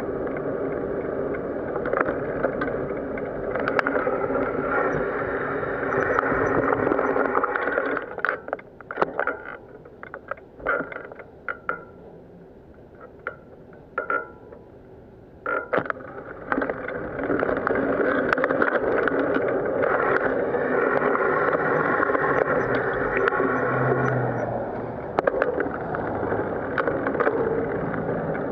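Riding noise on a bicycle-mounted camera: a steady rush of wind and road noise over the microphone, with scattered clicks and rattles. About a third of the way in it falls to a much quieter stretch of sharp clicks for several seconds, then the rush picks up again.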